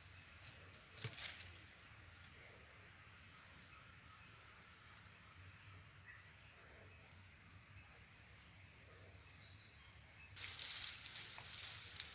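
Faint outdoor garden ambience: a steady high-pitched insect drone, with a few short falling chirps. A rustling noise comes in about ten seconds in.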